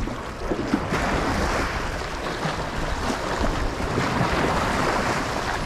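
Sea waves washing and splashing over shoreline boulders, with wind buffeting the microphone.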